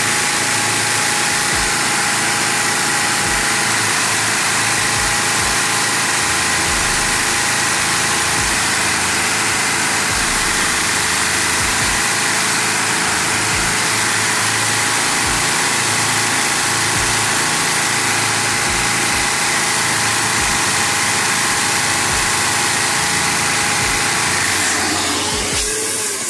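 LEGO inline-six vacuum engine running fast on vacuum suction at about 1600 to 1800 RPM, a loud steady whir with a constant whine. Near the end it dies down and runs down as the suction is cut back.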